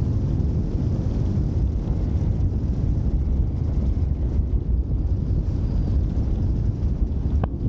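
Airflow buffeting the microphone of a camera mounted on a hang glider's wing in flight: a steady, low rushing rumble, with one short click near the end.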